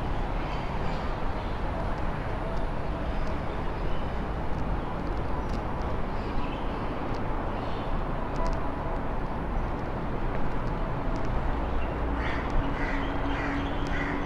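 Steady outdoor ambience: a low rumble of traffic with occasional bird calls, a few more near the end.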